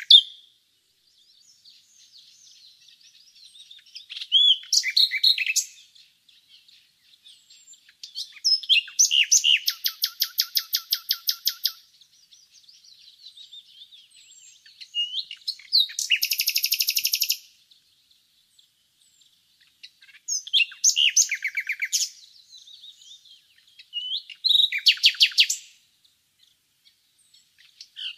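Common nightingale singing: about five separate phrases, each a couple of seconds long with pauses between, several built from fast runs of repeated notes.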